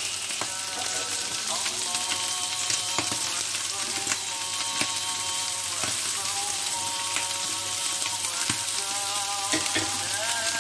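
Liver skewers wrapped in caul fat sizzling steadily on an electric griddle, with scattered sharp clicks.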